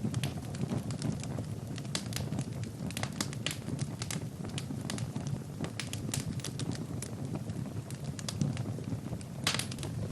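Wood fire burning in a fireplace: a steady low rumble of flames with irregular sharp crackles and pops from the burning logs, a quick cluster of louder pops near the end.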